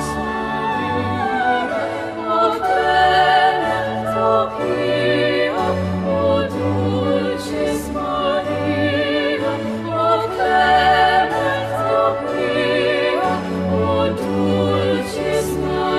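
Classical operatic singing: a voice holding long notes with vibrato over sustained low accompaniment.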